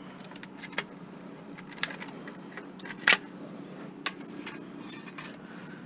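A few sharp metallic clicks and taps as a cotter pin and wire are worked off a piece of scrap metal, the loudest about three seconds in, over a steady low hum.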